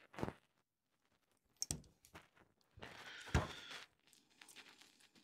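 Light clicks and knocks of small metal parts being handled during reassembly of a Weihrauch HW35 air rifle's barrel pivot (bolt, washer and shims), one with a short metallic ring. A brief scraping rustle with a sharp knock in it comes about three seconds in.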